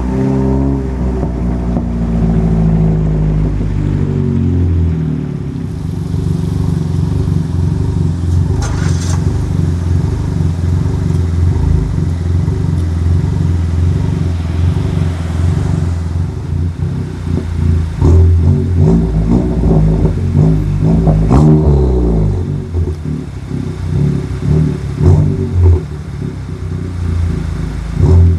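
Chevrolet Cruze engine running and revving, its pitch falling and rising at the start and again later. A run of sharp clicks and pops falls in the latter half.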